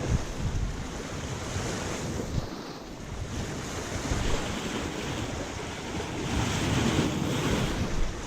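Wind buffeting the microphone in gusts over the wash of small waves along the shore.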